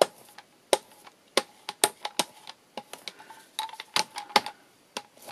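A brayer being rolled back and forth through gesso on a glass craft mat, making a run of sharp, irregular clicks.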